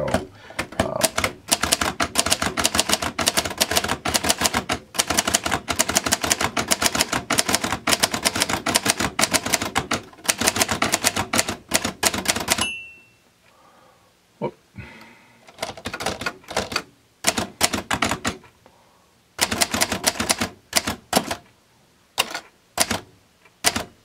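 1962 Hermes 3000 manual portable typewriter being typed on: a fast, steady run of clacking keystrokes as the type bars strike the paper. About thirteen seconds in the run breaks into a few scattered strikes, then picks up fast again near the end.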